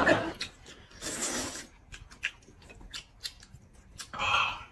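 Eating sounds from a bowl of huimian noodles in soup: a short slurp about a second in, then a run of small wet clicks and smacks of chewing, and a louder slurp near the end.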